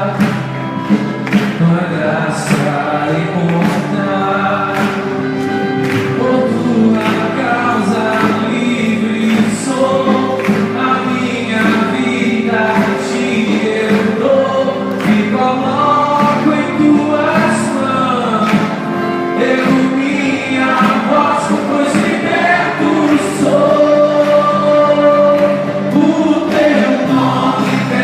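Gospel worship music: several voices singing together over sustained instrumental chords with a steady drum beat.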